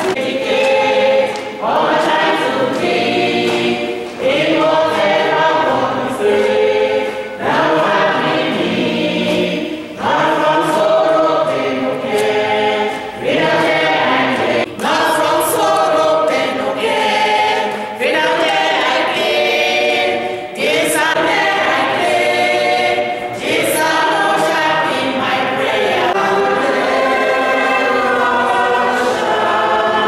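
Church choir of men and women singing a hymn together, in phrases of a few seconds each with short breaks between them.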